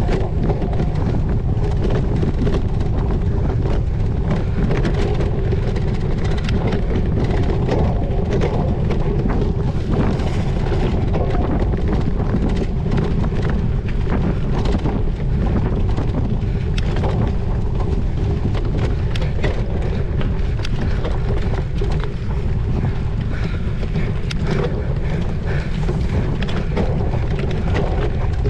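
Steady wind buffeting the microphone of a cyclocross bike moving at race speed, with many short rattles and knocks from the bike over rough ground.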